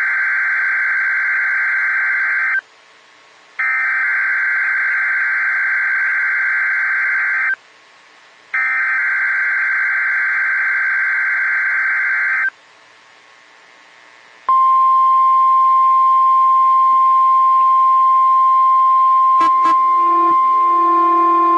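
NOAA Weather Radio Emergency Alert System test signal. First come three bursts of the SAME digital data header, a harsh warbling screech each about four seconds long with a one-second pause between. About fourteen seconds in, the steady 1050 Hz warning alarm tone begins. Near the end a couple of clicks sound and a lower second tone joins the alarm tone.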